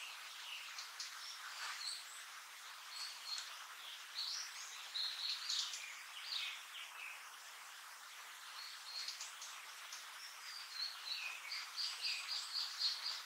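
Blue-and-white flycatcher calling: two bouts of varied high chirps and short downward-sliding notes, the second ending in a quick run of repeated notes.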